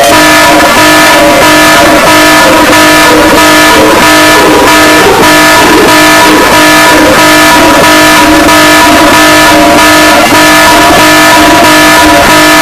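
Very loud, heavily distorted EAS-style emergency alarm: several steady tones sound together as a chord over harsh noise, with a fast, rough pulsing.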